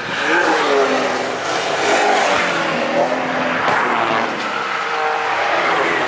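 BMW engine driven hard past the trackside, its note rising and falling in pitch as the car comes through, over tyre and wind noise.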